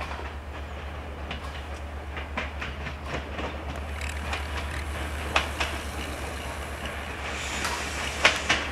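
TFG diesel multiple unit running along the track with a steady low engine drone, its wheels clacking over rail joints, a few sharper clacks about five seconds in and again near the end.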